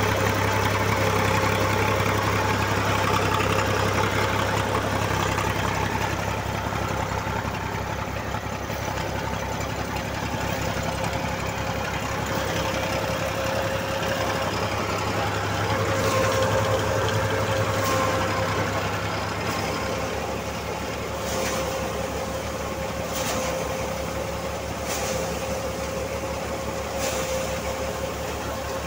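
HMT 4922 tractor's diesel engine running steadily with a Prachi axial-flow paddy thresher working alongside it: a fast, even engine chug under a steady hum. From about two-thirds of the way in, a faint sharp knock comes roughly every two seconds.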